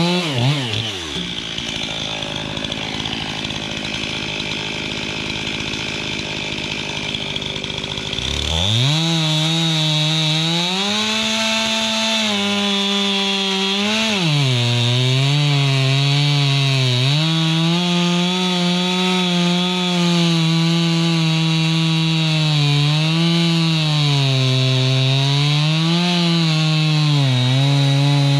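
Two-stroke chainsaw: it drops from full revs to idle within the first second and idles for several seconds. About eight seconds in it revs up again and runs at high revs, its pitch dipping and recovering again and again as it cuts through a log.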